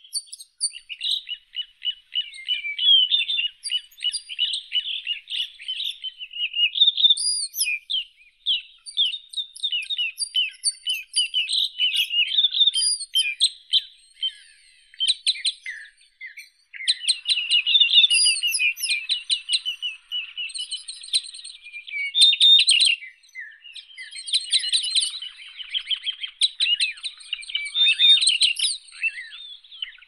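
Small songbirds chirping and twittering in a dense chorus of rapid, high, overlapping calls, with brief lulls.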